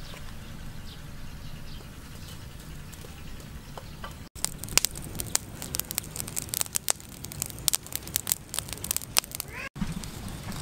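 Burning charcoal crackling, with many sharp pops and snaps from about four seconds in until shortly before the end; before that only a faint low background.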